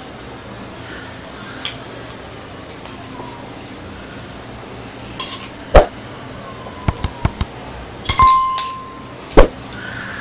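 Metal spoons clinking against ceramic bowls while two people eat: about nine scattered sharp clinks, with a quick run of four about seven seconds in and one that rings on briefly just after.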